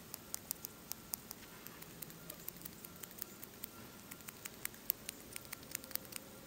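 Knife carving a split wooden segment thin: a run of short, crisp clicks as the blade shaves off wood, irregular, about three or four a second.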